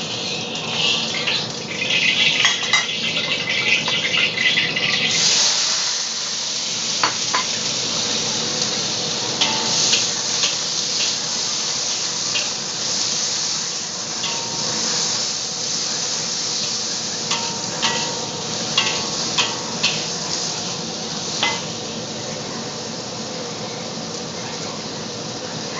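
Sliced onions sizzling in hot oil in a wok, with a metal spatula clinking and scraping against the pan as they are stir-fried. The oil crackles at first; about five seconds in the sizzle jumps louder, and it eases a little near the end.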